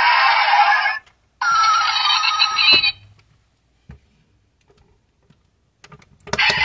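Electronic sound module of a 1:18 die-cast Porsche Panamera model. One sound cuts off about a second in, then a warbling, ringing electronic tone plays for about a second and a half. After a stretch of near quiet with a few light taps, a click near the end sets it playing again.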